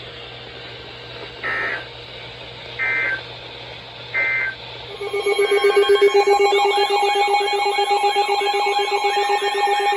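NOAA Weather Radio alert signalling: three short bursts of two-tone digital data chirps (the SAME header coding a new warning). From about five seconds in comes a loud, steady alert tone with a warbling alarm over it, announcing a new severe thunderstorm warning.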